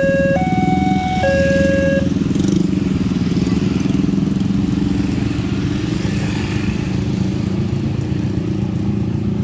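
Railway level-crossing warning alarm sounding two alternating tones, which stops about two seconds in as the crossing clears. Then the engines of motorcycles and cars run as traffic moves off across the reopened crossing.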